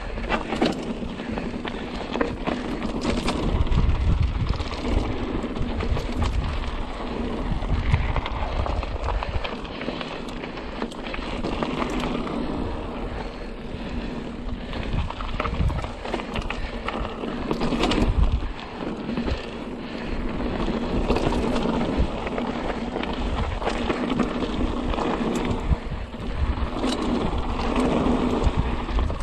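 Mountain bike riding a dirt trail: wind buffeting the microphone over the noise of the ride, with frequent knocks and rattles as the bike goes over bumps.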